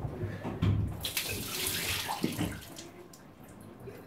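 Water from a running tap splashing into a bathroom sink, loudest for about a second and a half starting about a second in, as shaving lather is rinsed off a freshly shaved head.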